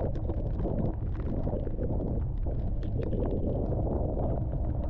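Heavy rain pattering on a vehicle as it drives slowly along a wet road, many small drop ticks over a steady low rumble.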